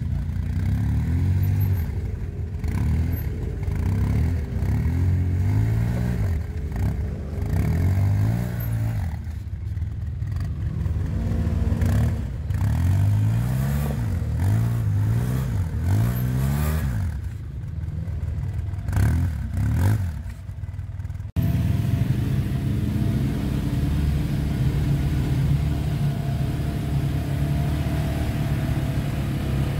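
Rock buggy engine revving up and down over and over, the pitch climbing and dropping every second or two. About two-thirds of the way through it cuts off abruptly to a steadier, more even engine drone.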